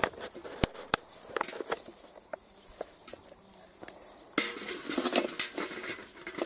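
Rustling and small clicks as a wet mesh fish trap is worked out of the grass, then about four seconds in a sudden burst of splashing, running water as the trap is lifted and water drains out of it.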